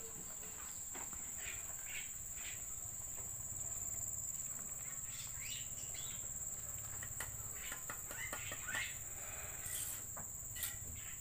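Steady high-pitched insect drone, with scattered light taps and a few short chirps over it.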